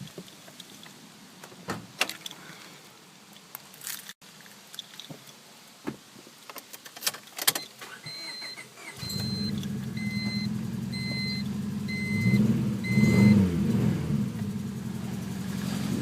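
Keys and clicks, then a warning chime beeping about twice a second while a 1999 Honda Civic Si's four-cylinder engine starts and settles to a steady idle. The engine is revved briefly up and back down a few seconds after starting. The owner suspects the engine has a spun bearing.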